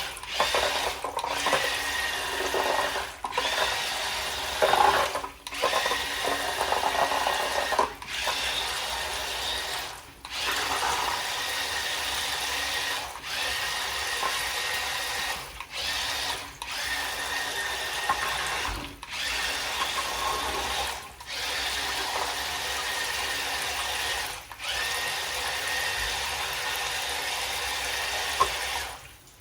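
Small electric motor of a radio-controlled toy whirring in bursts of one to three seconds, stopping and starting again about a dozen times.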